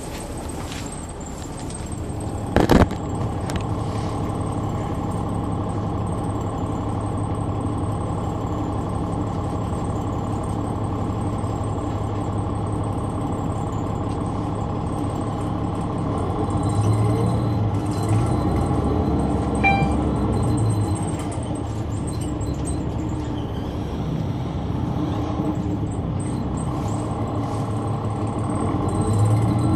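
Caterpillar C-9 ACERT diesel engine of a 2004 Neoplan AN459 articulated bus running, heard inside the cabin, with its low note swelling several times in the second half. A single sharp knock about three seconds in.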